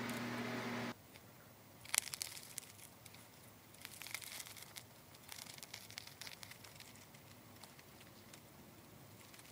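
A steady oven hum cuts off about a second in. Then the crisp crust of a baked crescent roll crackles as gloved hands pull it apart: one sharp crack, then many small crackles and tearing sounds.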